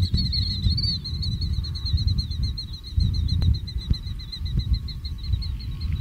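Killdeer giving a long, rapid trill of short high notes that fades out about four seconds in, over a low rumble of wind on the microphone.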